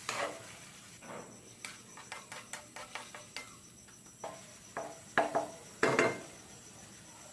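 Wooden spatula stirring a wet sauté of tuna, onion and garlic in a metal wok: a series of light knocks and scrapes against the pan, a few louder ones about five and six seconds in.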